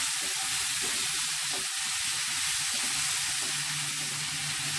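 Chopped cabbage, chana dal and onions sizzling steadily in hot oil in a metal kadai as they are stirred with a wooden spatula.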